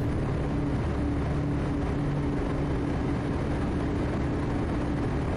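Quest Kodiak's single PT6A turboprop engine and propeller at takeoff power during the initial climb, heard in the cabin as a steady drone with a held low hum.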